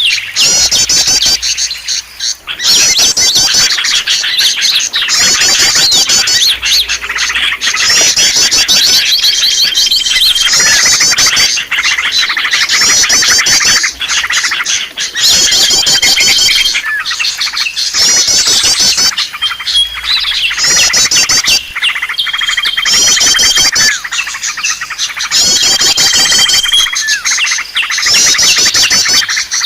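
Small songbirds in a dense, loud chattering chorus used as a bird-trapping lure call. Rapid chirping trills repeat every couple of seconds, with a held high whistle now and then, over a steady rush of water.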